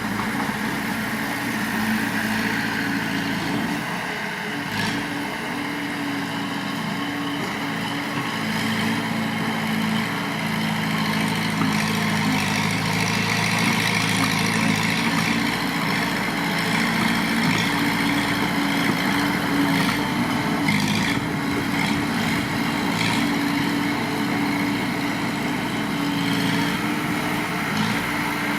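Heavy diesel engine of earthmoving machinery (bulldozer or dump truck) running steadily, a little louder from about midway, with a few faint knocks.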